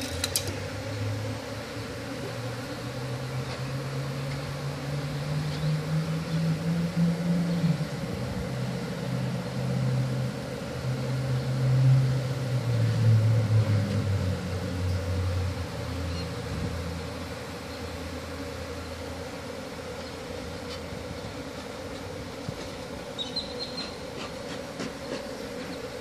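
Steady buzzing of a large cloud of honey bees disturbed from a hive under a mobile home. Over the first two-thirds a separate low drone swells, rises and then falls in pitch before fading out.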